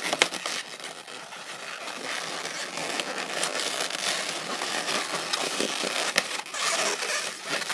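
Latex modelling balloons rubbing and creaking against each other and against hands as they are twisted and tucked into a pinch twist, with a few sharp clicks.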